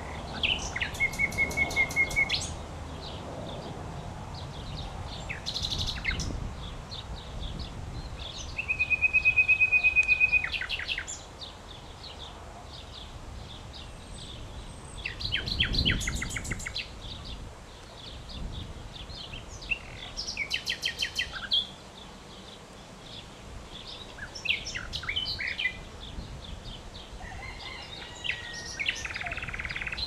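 Common nightingale singing: a string of song phrases, each a second or two long, mixing fast runs of repeated notes with steady held whistles, separated by pauses of a few seconds. A faint low background noise runs underneath.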